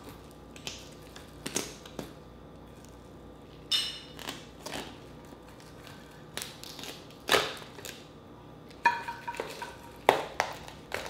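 Shell of a whole cooked Dungeness crab cracking and snapping as the top shell is pried off the body by hand. A series of separate cracks, the loudest about seven seconds in.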